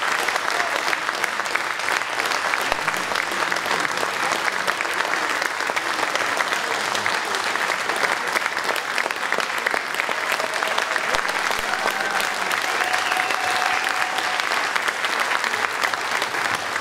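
Audience applauding steadily: many hands clapping in a dense, even stream.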